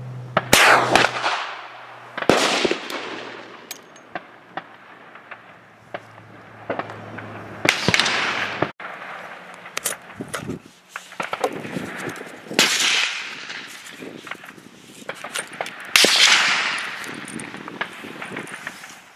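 Five loud gunshots at irregular intervals, each with a second or so of echo trailing away. Small clicks and rustles from handling lie between them.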